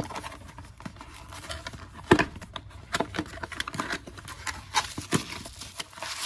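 Plastic and cardboard packaging crinkling and tearing as a tool bin is unwrapped, with irregular crackles and a few sharper knocks of handling.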